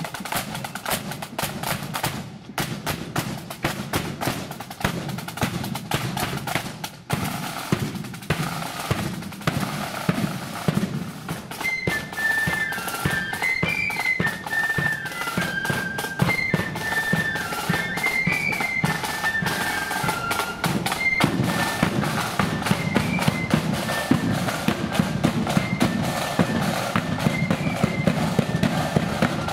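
Marching flute band: snare drums beating a fast, dense rhythm, and from about twelve seconds in, flutes come in with a high melody over the drums.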